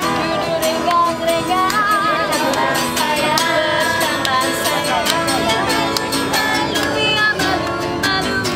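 Music: a song with a singing voice that wavers in vibrato, over instrumental accompaniment.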